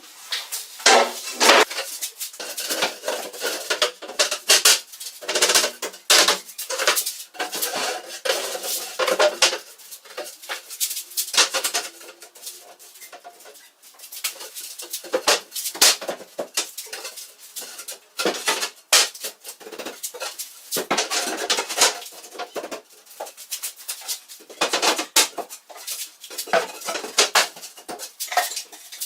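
Hard objects clinking and clattering, with many irregular knocks and clinks and brief pauses between runs of them.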